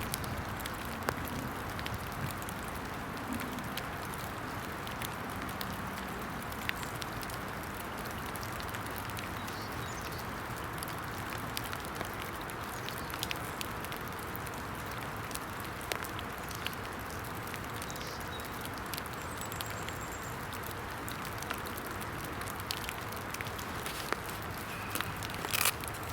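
Steady hiss of falling rain, with scattered sharp clicks and taps and a brief cluster of louder clicks near the end.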